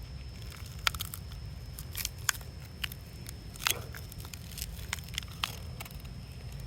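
A handful of sharp, irregular clicks and small cracks from the broken plastic and glass pieces of a smashed phone being handled, over a steady low rumble.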